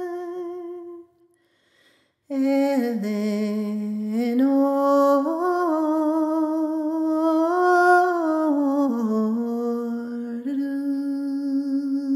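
A woman singing unaccompanied in the Irish sean-nós style. A held note fades out about a second in, and after a short breath a long phrase follows, with slow ornamented turns in pitch, ending on a held note.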